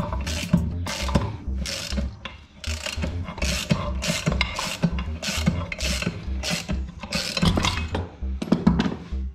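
Hand ratchet worked in short strokes, a sharp burst of ratcheting clicks about twice a second with a brief lull between the second and third seconds. Background music with a repeating bass line runs under it.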